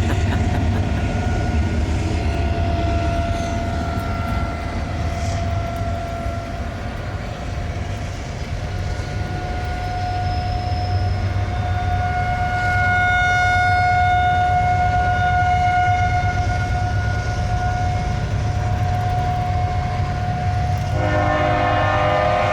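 Outdoor tornado warning siren sounding a steady wail, one held tone that swells and fades as the siren turns, over a steady low rumble. Near the end a denser chord of several tones comes in.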